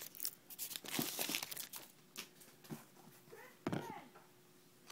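Foil trading-card pack wrapper being torn open and crinkled by hand, in irregular rustles with a few sharp crackles.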